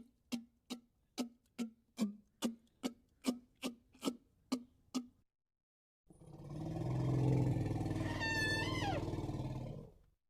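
Cartoon monster sound effects: a steady run of hollow ticks, about two and a half a second, that stops about five seconds in. After a short pause comes a loud, low rumbling growl, with a high squealing cry that slides down in pitch near the end.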